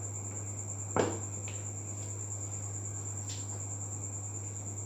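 A silicone spatula knocks once against a plastic mixing bowl about a second in, with a couple of faint taps later, while whipped cream is scraped down from the bowl's sides. Underneath runs a steady high-pitched whine and a low hum.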